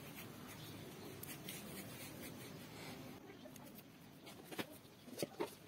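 Faint rubbing and rustling of a hand squeezing and rolling a moist roasted rice-flour and sugar-syrup mixture into laru balls in a steel bowl, with a few light clicks near the end.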